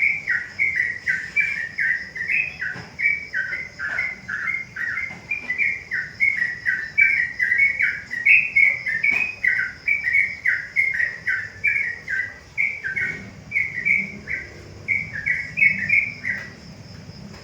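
Yellow-vented bulbul (trucukan) singing a long, unbroken run of quick bubbly notes, stopping just before the end. A steady high insect drone runs underneath.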